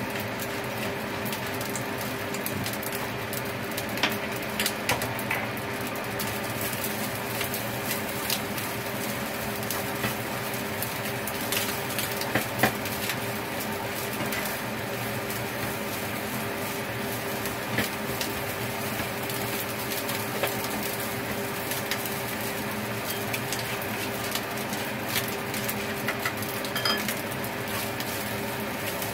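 A spatula scraping and knocking against a frying pan as rice is stir-fried, in scattered clicks and scrapes over a steady hiss and low hum.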